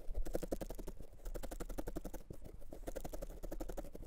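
Felting needles in a multi-needle pen tool stabbing rapidly and evenly into a roll of merino wool roving on a bristle felting mat. The wool is being firmed and smoothed.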